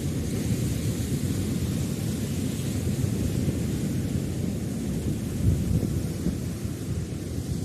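Wind buffeting the microphone as a steady low rumble, over the wash of sea surf on the rocks.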